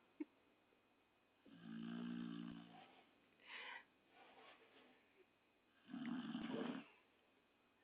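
A dog snoring in its sleep: two loud, low snores about four seconds apart, each about a second long, with a shorter, higher breath between them.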